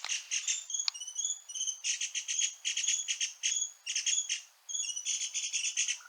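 Dark-backed sibias calling from a feeding flock: fast buzzy rattling chatters repeated again and again, mixed with short chirps.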